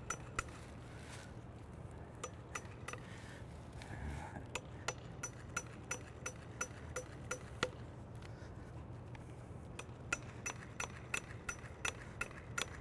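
A wood chisel cutting strips of sapwood out of a debarked patch on an oak trunk: a run of sharp clicks and snaps at irregular spacing, quickening to about three a second near the end, over a faint steady hum.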